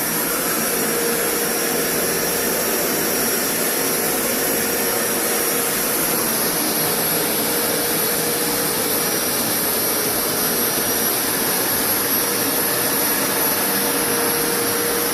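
Rug Doctor Deep Clean carpet cleaner running steadily with a constant whine as it is pulled back over the wet carpet, its suction drawing up the water.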